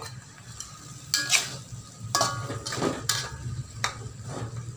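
A metal spatula scraping and clanking in a wok while stir-frying chicken pieces with freshly added onion. Several sharp clanks ring out over a faint sizzle of the frying.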